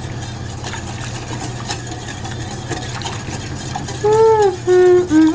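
Wire whisk stirring milk in a stainless steel saucepan, its wires ticking lightly against the pan over a steady low hum. About four seconds in, a voice starts humming a tune, louder than the whisking.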